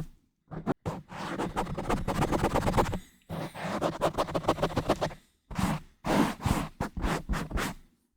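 Scratching and rubbing directly on an uncovered microphone. Two long runs of rapid scratches are followed by several shorter separate rubs, with brief silent gaps between them.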